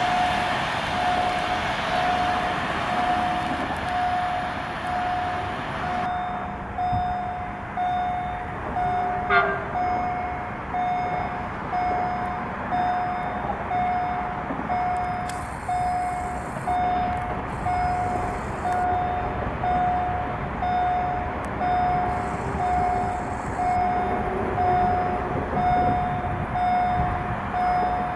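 Railway level crossing warning signal ringing, a single pitched tone repeating at an even pace, sounding because a train is approaching. At the start, the noise of a passing passenger train dies away after a few seconds.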